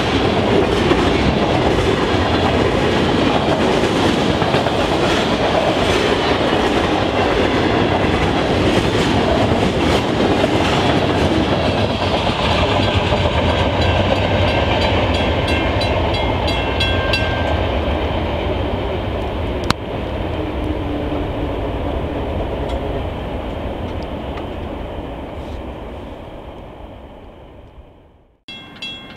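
Freight train cars rumbling past, their wheels clacking over the rail joints. The train noise fades away over the last ten seconds or so and cuts off suddenly just before the end, while the crossing warning bell rings with an even beat, standing out more as the train dies away.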